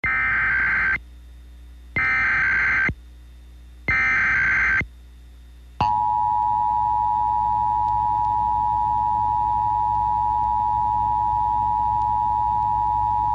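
Emergency Alert System tones: three short bursts of the warbling SAME data header, about two seconds apart, then the steady two-tone attention signal held for about eight seconds, announcing a severe thunderstorm warning.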